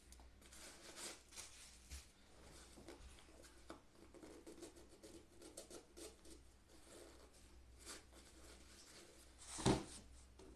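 Shoelaces being threaded and pulled through the eyelets of an Air Jordan Legacy 312 Low sneaker: faint rustles and small ticks of lace against leather, with a louder thump near the end as the shoe is handled.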